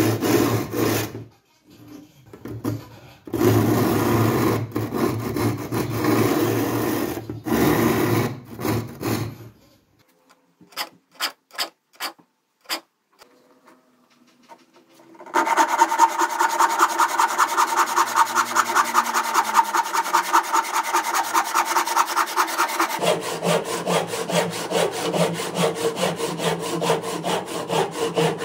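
A block rubbed along the teeth of a hand saw in rasping strokes with short pauses, then a few light ticks and a brief lull. From about halfway through, the hand saw cuts a wooden block in quick, even strokes, its tone changing a little in the last few seconds.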